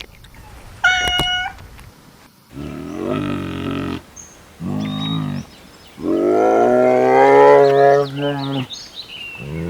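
Animal calls: a short high-pitched cry about a second in, followed by four long, low-pitched drawn-out calls, the longest near the middle lasting almost three seconds.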